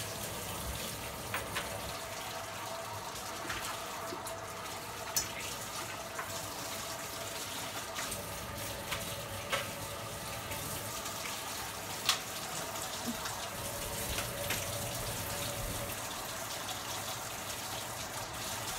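Kitchen faucet running steadily into a stainless steel sink, with a few sharp clinks as the sink is scrubbed.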